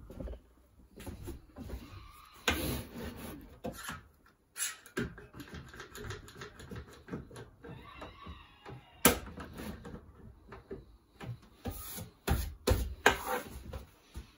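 Workshop handling noises of a one-handed bar clamp being fitted and squeezed tight to hold a router table down: irregular clicks, ratchet-like rattles and knocks. The loudest knocks come about nine seconds in and again near the end.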